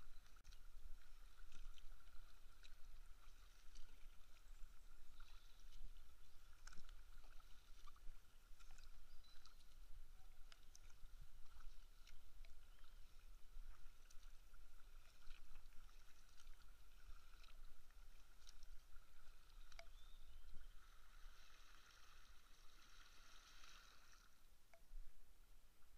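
Kayak paddle strokes in calm water: the blade dipping in and dripping, with small irregular splashes and trickles. There is a longer, louder splash of water for a few seconds near the end.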